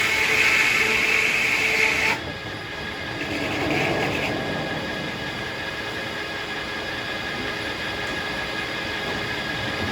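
Circular sawmill blade cutting through a hackberry log with a loud, ringing whine that stops abruptly about two seconds in, a brief weaker cutting sound a second later, then the mill running steadily.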